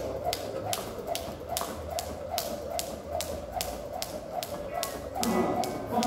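Jump rope slapping a concrete floor in a steady rhythm, about two and a half strikes a second. Near the end a louder layer of pitched background sound comes in.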